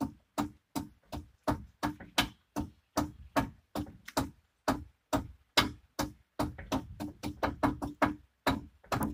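Music with a steady beat of sharp, pitched knocks, about three a second.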